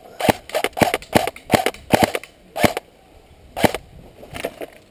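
Airsoft electric rifle firing single shots: about ten sharp cracks at an uneven pace, a fraction of a second to a second apart.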